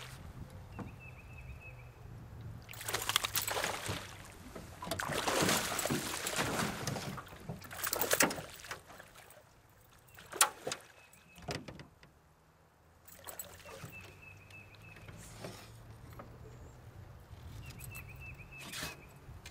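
Hooked bass splashing and thrashing at the water's surface beside the boat in several loud bursts over the first half, then a sharp knock about halfway through as it is landed. A steady low hum runs underneath.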